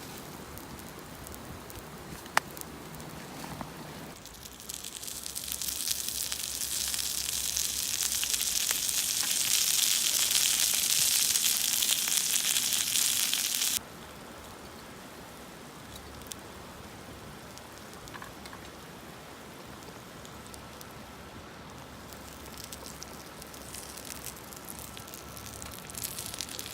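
Raw gyoza frying in a hot pan over a camp fire. About four seconds in a loud sizzle builds up and holds for roughly ten seconds before it cuts off abruptly, leaving a quieter steady sizzle.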